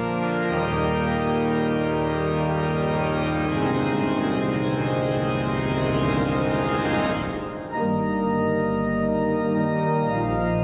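Church organ playing loud, sustained full chords that change every few seconds, with a brief break before a new chord near the end.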